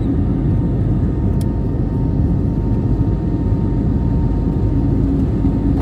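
Steady cabin noise inside an Airbus A320neo during the climb after takeoff: a low rumble of the engines and rushing air, with a faint steady tone running through it.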